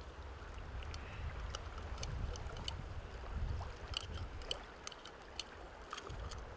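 Light, scattered metallic clicks of pliers against the hook and metal spoon as the hook is worked out of a northern pike's mouth held open by jaw spreaders, over a low steady outdoor rumble.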